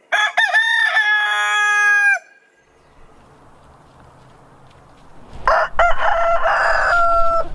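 Two rooster crows, each about two seconds long with a long held final note: first a Lakenvelder rooster, then, after a pause of about three seconds, a Cubalaya rooster crowing near the end.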